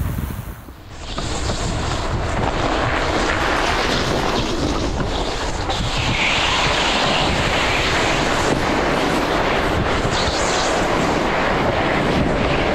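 Steady rushing wind noise on the microphone, with a short drop in level just after the start.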